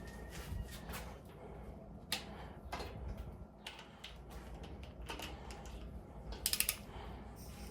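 Ratchet of a torque wrench clicking as the main bearing cap girdle bolts of a Honda D16 engine are tightened in sequence. There are scattered single clicks, then a quick run of clicks about six and a half seconds in.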